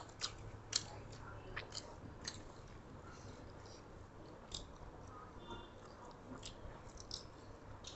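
Faint chewing and mouth noises from people eating, with scattered soft clicks.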